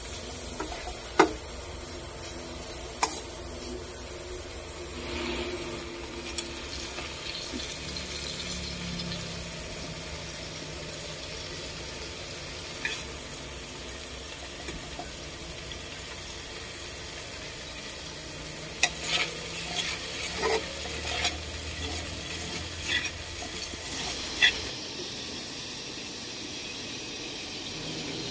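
Beef slices sizzling in their sauce in an aluminium wok, a steady hiss, while a spatula and spoon stir and scrape them. Sharp knocks of the utensil on the pan come about a second in and in a cluster in the second half.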